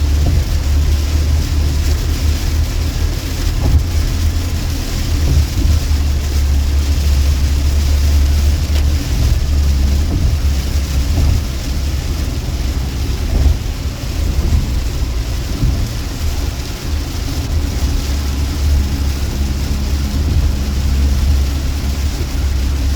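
Road noise inside a moving car on a rain-soaked highway: a steady low rumble with a hiss of tyres on wet pavement and rain.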